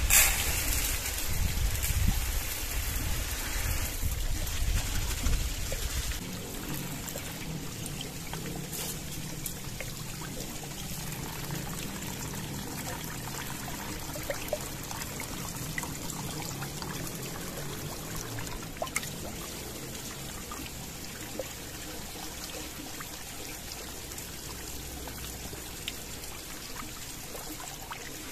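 Water running from a bamboo spout and splashing into a metal pot of rice as the rice is rinsed, a steady trickle. It is louder with a low rumble for the first few seconds, and a few light taps come later.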